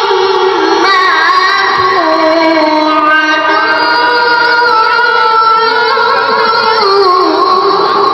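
A boy's high voice reciting the Qur'an in the melodic tilawah style, holding long notes that wind up and down in ornaments through one extended phrase.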